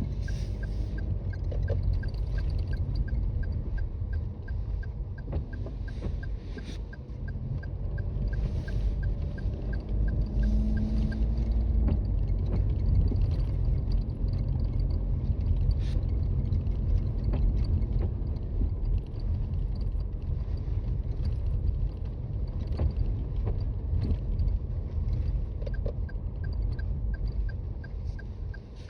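Toyota Raize Z 4WD driving on snowy roads, heard from inside the cabin: a steady low road and tyre rumble, with the engine note rising as the car speeds up about eight to twelve seconds in. A light, regular ticking comes and goes at the start and again in the second half.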